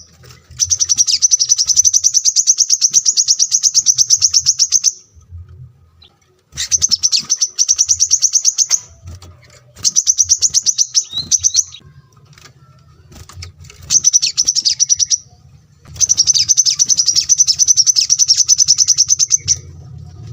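Small songbird singing a fast, high-pitched trill of rapidly repeated notes in five bursts of one to four seconds, with short pauses between them.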